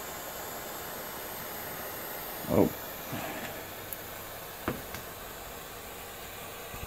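Propane torch hissing steadily. About two and a half seconds in there is one loud short thump, followed by a few light clicks.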